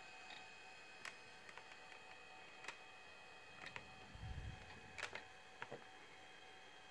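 Toshiba Satellite Pro 420CDT laptop running: a few faint, irregular clicks over a faint steady whine, with a soft low thump about four seconds in.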